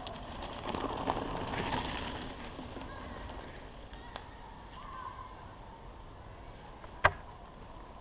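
Mountain bike rolling past on a dirt-and-gravel trail, its knobby tyres crunching, fading away over the first two or three seconds. Then a low steady background with a sharp click about seven seconds in.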